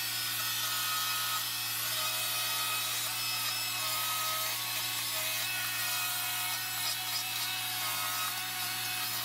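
Small short-bar chainsaw running steadily and cutting into wood, with no pauses.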